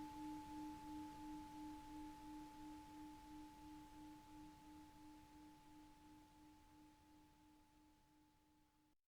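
Tibetan singing bowl's ring dying away: a low tone that pulses gently, with a fainter higher tone above it, fading slowly until it cuts off just before the end.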